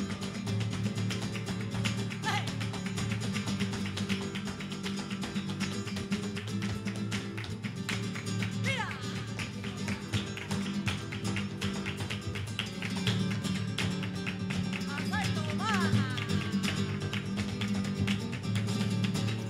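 Live flamenco guitar playing, with dense rhythmic strumming and plucked notes.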